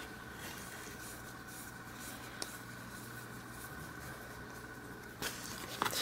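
Faint scratchy handling of a vintage Sachs Huret rear derailleur as its small limit screws are threaded into the body by hand. A light click comes about two and a half seconds in, and a few soft knocks near the end.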